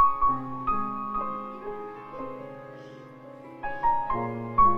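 Slow piano background music: chords struck a few times, each left to ring and fade.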